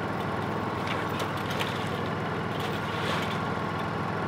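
A steady low engine hum, as of an engine idling, with a few faint clicks over it.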